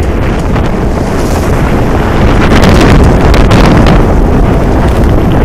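Force 10 storm wind at sea, heard aboard a sailboat: loud, continuous wind buffeting the microphone over the rush of heavy seas. It grows louder a couple of seconds in.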